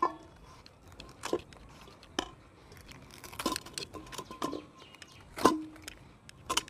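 Ripe palmyra palm fruit being peeled by hand, its tough skin and cap cracking and tearing away in about seven short, sharp snaps, the loudest a little before the end.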